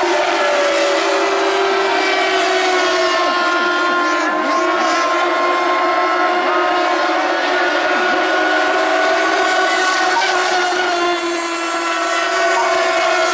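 Several radio-controlled model racing boats' small two-stroke engines running flat out at once, each at its own steady high pitch that drifts slightly as the boats lap.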